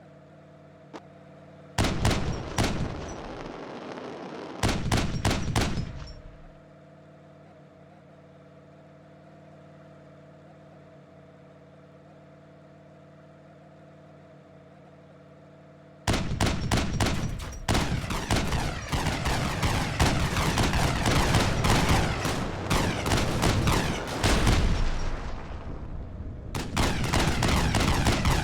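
Engine exhaust firing rapid volleys of pops and bangs in two short bursts, then idling quietly with a steady hum, then a long loud stretch of dense crackling bangs with a brief lull near the end: a flame-and-bang exhaust setup.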